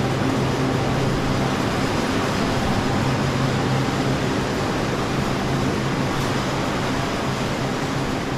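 Steady mechanical drone of silk factory machinery running, with a continuous low hum.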